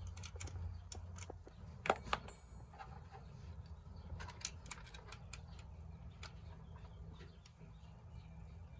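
Scattered small clicks and light knocks of tools and parts being handled while an e-bike is assembled, with a sharper knock about two seconds in, over a steady low hum.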